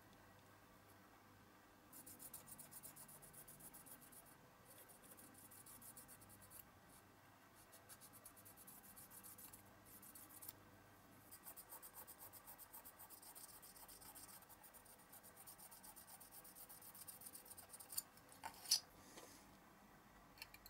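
A cotton bud rubbing quickly back and forth over a Matchbox model car's clear plastic window glazing: rapid short scratchy strokes with brief pauses. A few sharp clicks near the end.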